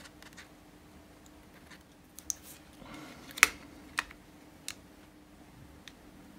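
A few small, sharp clicks and taps from an iPhone 7 Plus display being closed onto the phone's frame and pressed into place by hand. The loudest click comes a little past the middle, and a few lighter ones follow.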